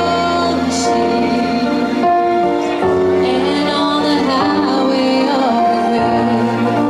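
Live pop music with singing: long held sung notes over a band or backing track.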